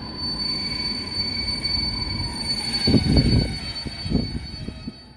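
Locomotive-hauled passenger train, led by an EU07 electric locomotive, running slowly into the station with a steady high squeal over a low rumble. A few heavy thumps come about three seconds in and again about a second later.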